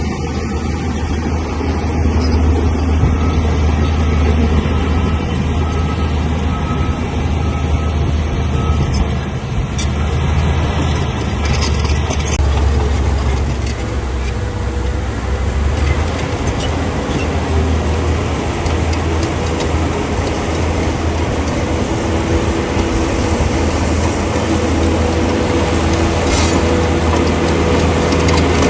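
Heavy diesel engine of a crawler bulldozer running steadily under load. About twelve seconds in, a rough scraping, grinding noise joins it and carries on over the engine.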